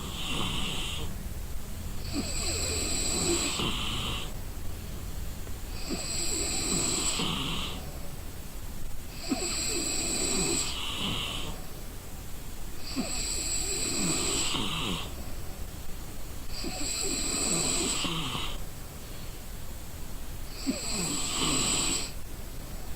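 A sleeping person snoring, one snore about every three and a half seconds, in an even rhythm.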